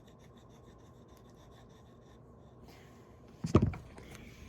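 Quick, rhythmic rubbing strokes on a plastic vacuum part for the first second or so, as it is scrubbed clean. Near the end come two loud knocks from the parts being handled.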